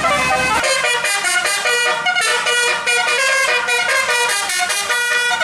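Basuri musical bus horn playing a fast tune of short notes. A low engine rumble underneath drops away about half a second in.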